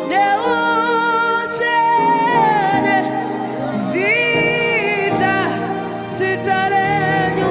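Gospel worship song: a singer holding long, wavering notes over steady sustained chords.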